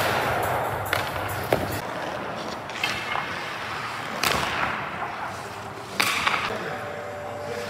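Ice hockey skate blades scraping across rink ice in several short bursts, with a few sharp knocks of pucks.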